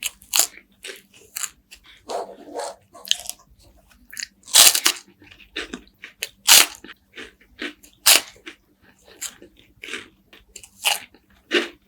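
Close-miked crunching and chewing of crispy wafers with honey and walnuts: irregular crisp bites and chews, with a few louder crunches near the middle.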